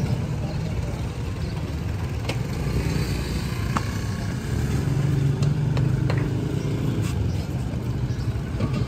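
Steady low rumble of road traffic and vehicle engines, with a few light knocks scattered through it.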